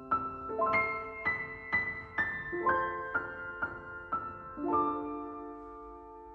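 Solo piano playing a slow melody, one note about every half second, then a held chord just before five seconds in that rings and slowly fades.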